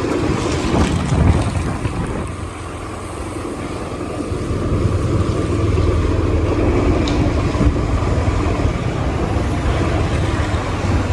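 A motor vehicle engine running steadily, with wind noise on the microphone; it dips briefly about two seconds in.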